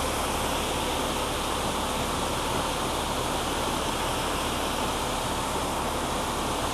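Combine harvester running steadily: an even, unchanging wash of machine noise with a low hum and a faint constant whine.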